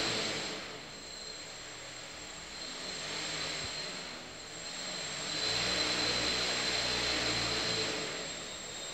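S500 quadcopter's four motors and propellers whirring while it sits on the floor, with a steady high whine. The throttle is eased back, then raised again, loudest from about five to eight seconds in, in a failed attempt to lift off.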